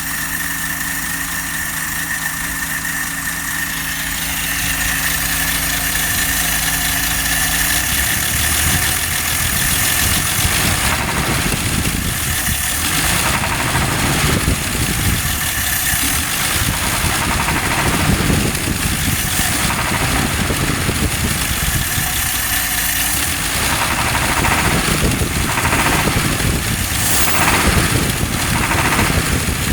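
1954 Nash engine running with a knock, an ugly sound whose source is not yet known. It idles steadily for the first several seconds, then runs louder and more unevenly, with several surges near the end.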